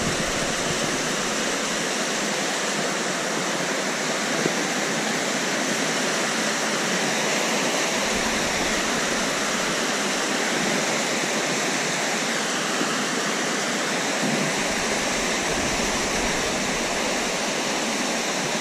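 Waterfall rushing steadily, close by: an even, unbroken wash of falling water.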